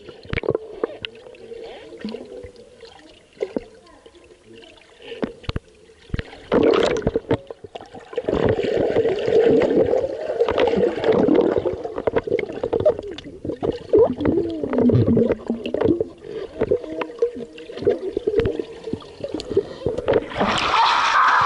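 Swimming-pool water heard with the microphone underwater: muffled gurgling and bubbling with many scattered knocks and clicks, under a steady hum. The sound is quieter for the first few seconds and grows busier and louder from about six seconds in, as swimmers move around the camera.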